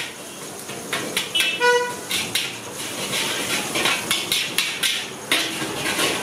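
Metal spatula knocking and scraping against a large wok as fried rice is tossed and stirred, in quick irregular strikes. A vehicle horn toots briefly about a second and a half in.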